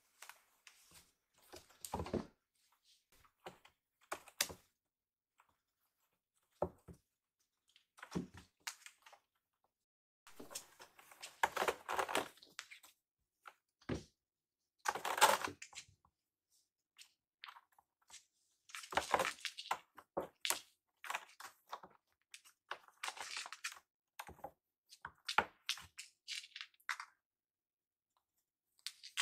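Kittens scrambling on a corrugated cardboard scratcher box and batting at hanging cloth ties: irregular bursts of scratching and rustling with light thumps and clicks, separated by short quiet gaps.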